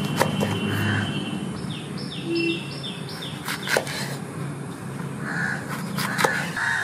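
Kitchen knife cutting through green bell peppers onto a wooden chopping board, with a few sharp knocks of the blade on the board. About a second and a half in, a bird calls a quick run of about six short, falling, high notes.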